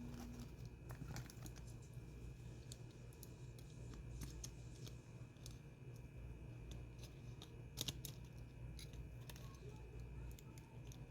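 Faint, scattered small clicks and taps of phone parts and small tools being handled during reassembly, with one sharper click about eight seconds in, over a low steady hum.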